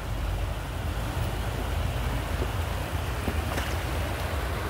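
Steady rushing of shallow river water running over stones, with a low wind rumble on the microphone; a couple of faint clicks come about three and a half seconds in.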